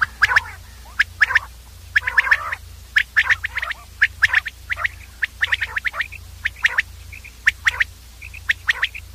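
Common quail calling: many short, sharp notes in quick pairs and triplets, with a few lower, rasping calls among them, over a steady low hum.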